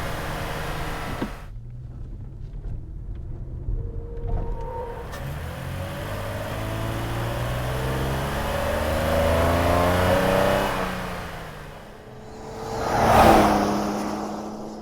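2020 Toyota Tacoma's 3.5-litre V6 running, then accelerating with the engine pitch climbing, and fading away; near the end the truck passes by, swelling loud and dying away.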